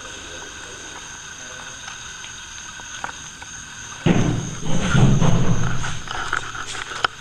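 Faint steady hiss with a thin high whine, then about four seconds in a sudden loud low thump and rumble lasting about two seconds, followed by a sharp click near the end.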